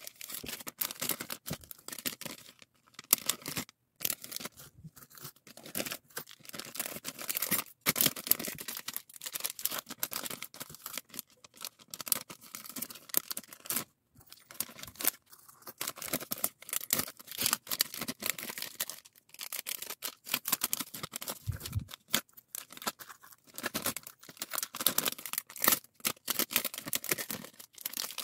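Clear plastic packing bags crinkling and rustling in the hands in an irregular run of close, sharp crackles, with fuse-bead keychains being handled and slipped into them.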